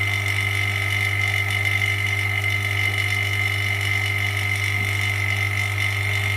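Vacuum pump running steadily, a constant low hum with a steady high whine over it, holding the phone screen down on the LCD separator's hot plate by suction.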